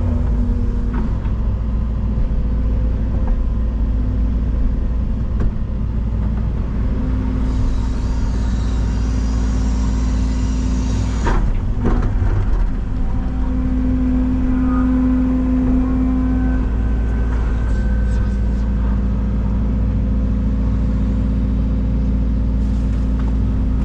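Excavator's diesel engine and hydraulics running steadily while it digs, with a sharp knock about eleven seconds in and the engine note strengthening for a few seconds as the hydraulics take load.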